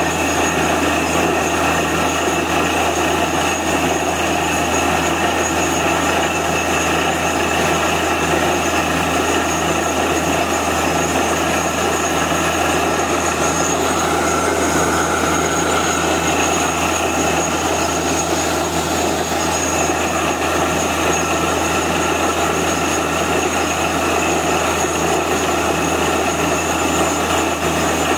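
Truck-mounted borewell drilling rig drilling, its engine and drill running with a steady, unbroken noise while water and rock cuttings spray out of the borehole.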